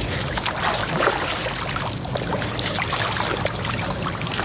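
Large channel catfish splashing and churning at the water's surface in a feeding frenzy, many quick irregular splashes over a steady wash of water.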